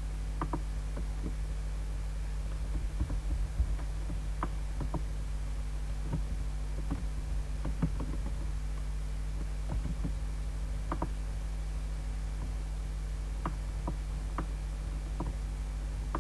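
Steady low electrical hum with scattered light clicks at irregular intervals, typical of computer mouse clicks during work on the computer.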